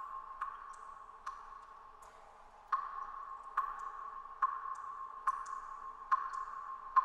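Film soundtrack sound design: a steady mid-pitched tone with a sharp, ringing click at an even beat, a little faster than once a second, getting louder about three seconds in.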